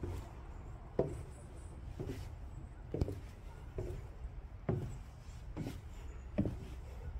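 Footsteps of a person walking at an easy pace, about one step a second, over a low steady rumble of wind and phone handling on the microphone.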